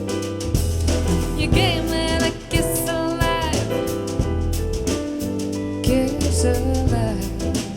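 Soul jazz music with drum kit, bass and piano under a sung melody line.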